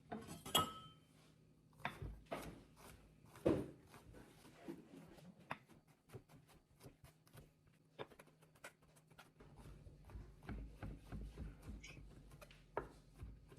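Kitchen knife chopping mushroom stems on a cutting board: irregular knocks, a few louder strikes in the first seconds, then quicker, denser chopping later on as the stems are cut into small cubes.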